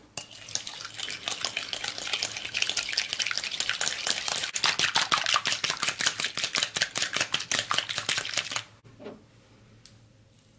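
Silicone whisk beating a raw egg in a ceramic bowl: quick, even strokes, several a second, that stop abruptly about two seconds before the end.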